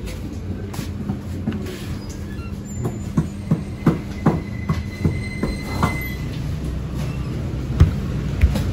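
About a second's run of sharp clacks, roughly three a second, with a faint thin squeal under them, from a shop chest freezer's sliding lid rolling on its track, over a steady low hum. Two more single knocks come near the end.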